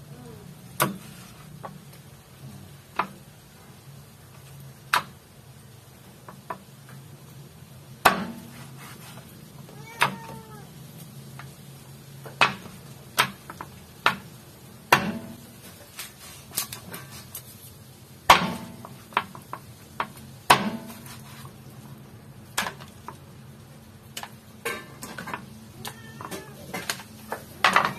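Meat cleaver chopping raw chicken on a wooden cutting board: single sharp chops at irregular intervals, roughly one to three seconds apart, over a low steady hum.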